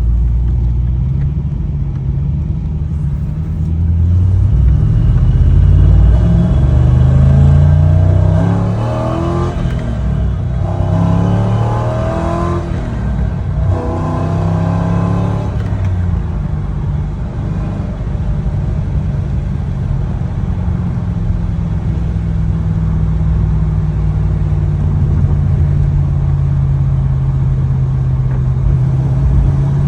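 C5 Corvette's 5.7-litre V8 running under load. Its pitch rises several times between about 6 and 16 seconds in, then settles to a steady drone. The owner reports this engine misfiring under load, with a P0300 random-misfire code.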